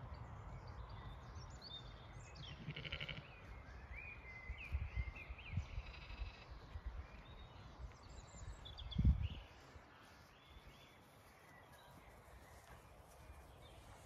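A Zwartbles sheep bleats once, a short wavering call about three seconds in, while small birds chirp in the background. A low rumble runs underneath, with one loud low thump about nine seconds in.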